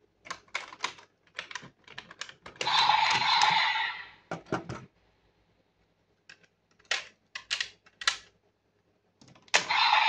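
Hard plastic clicking and clacking as parts are pulled from a DX Desire Driver toy belt, with a longer scraping noise about three seconds in and again near the end.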